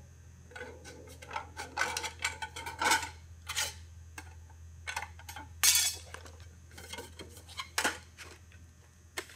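A piece of sheet-metal step flashing being handled and worked with a hand tool: a run of light metallic clinks and rattles, with a short, sharp crunch about halfway through and another near the end.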